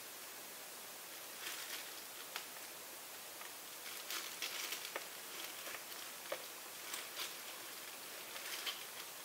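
Faint crinkling and rustling of thin disposable plastic gloves as the hands grip and shift a painted canvas, heard as scattered short crackles in small clusters over a steady low hiss.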